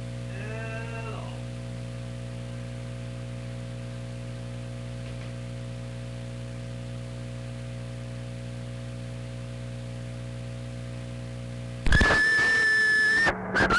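CB radio receiver putting out a steady electrical hum made of several low tones between transmissions, with a faint brief warble in the first second. About twelve seconds in, another station keys up and a loud steady whistle with hiss comes through the speaker.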